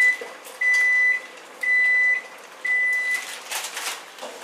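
Electronic beeper of a kitchen appliance sounding a run of high, even beeps about once a second, each about half a second long, the first one ending just as the run begins. A few light kitchen clatters follow near the end.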